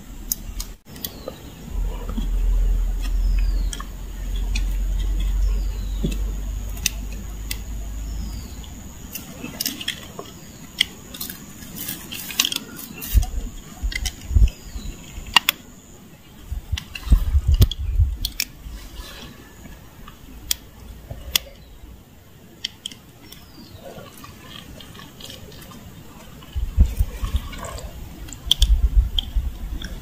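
Wet mud squelching and dripping, with scattered small clicks and knocks, as thin wooden sticks are pushed into a muddy puddle and handled to set a bird trap.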